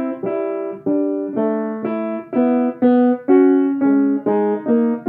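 Bechstein grand piano being tuned by ear: pairs of notes in the middle of the keyboard are struck together a little over twice a second, each sounding briefly and dying away, as the tuner tests intervals while setting the middle octave with the tuning lever on the pins.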